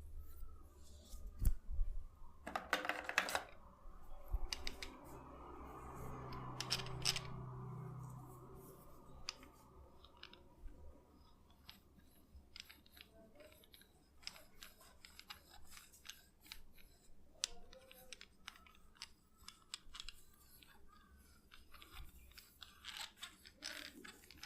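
Close-miked head massage: hands and fingers rubbing and scratching through hair and over the scalp, making crisp crackling rustles and many sharp little clicks. There is a louder rush of rubbing about three seconds in.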